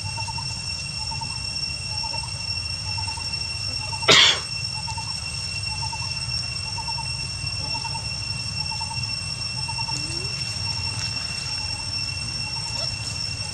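Outdoor ambience: a steady high-pitched whine at two pitches, a soft chirp repeating at an even pace of about three every two seconds, and a low rumble underneath. About four seconds in, a single short, sharp, loud sound cuts through.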